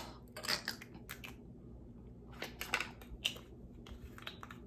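Light irregular clicks and taps, with a sharp click at the start and small clusters after it, from handling small plastic makeup containers.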